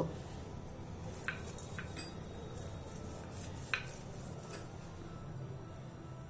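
Wooden rolling pin rolling out a stuffed paneer paratha on a stone counter: quiet rolling with a few light clicks and knocks, the sharpest about three and a half seconds in.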